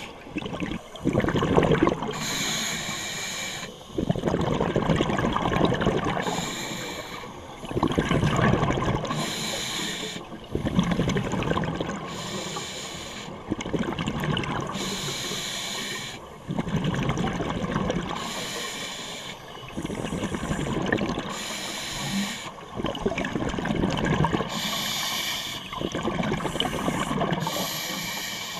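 Scuba diver breathing through a regulator underwater: a hissing inhale, then a rumble of exhaled bubbles, repeating roughly every three to four seconds.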